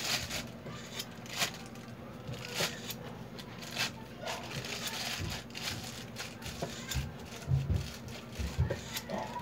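Cake-frosting handling sounds: an offset spatula scraping buttercream while a plastic cake turntable is turned by hand, with light clicks about once a second and a few soft low knocks near the end.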